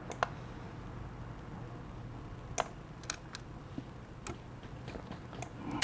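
Quiet, irregular single clicks of a computer keyboard and mouse in use, about eight of them, over a faint low room hum.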